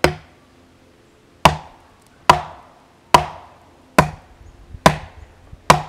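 Collins hatchet splitting firewood into small pieces: seven sharp chopping strikes into the wood, evenly spaced a little under a second apart.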